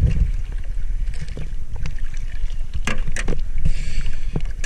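Wind buffeting the microphone and water sloshing around a small aluminium boat. Several sharp knocks against the hull come about three seconds in as the speargun and catch are brought aboard.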